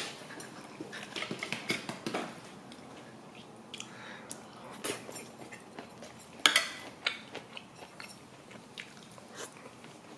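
Eating with a spoon and chopsticks: scattered light clicks and taps of the utensils against a plate, with soft chewing. The sharpest clink comes about two-thirds of the way through.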